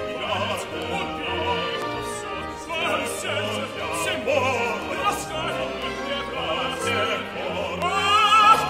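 Opera music: a male soloist singing with wide vibrato over a symphony orchestra, the voice swelling loudest near the end.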